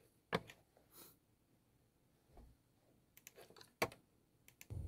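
Faint, scattered clicks of someone working a computer keyboard and mouse in a quiet small room, the loudest click about four seconds in.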